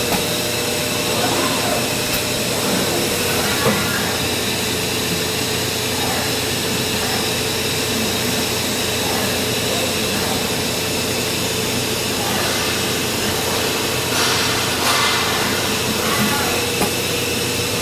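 Hurco VMX30U five-axis CNC machining center running: a steady hum and whine from its spindle and axis drives as it mills a metal part and tilts its trunnion table. A short burst of hiss comes about fourteen seconds in.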